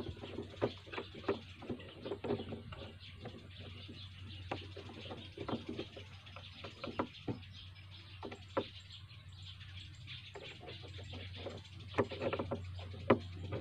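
Small plastic trigger parts handled and pressed together by hand on a wooden tabletop: irregular light clicks and taps, a few a second, over a steady low hum.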